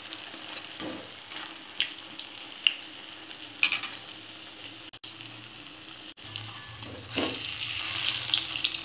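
Battered banana fritters (pisang goreng) deep-frying in hot oil in a wok: a steady sizzle with scattered crackles and pops, growing louder near the end.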